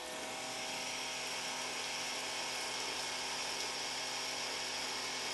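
Ryobi 1500 PSI battery-powered pressure washer running: a steady electric motor and pump whine with the hiss of water spraying from the gun through the blue soap nozzle.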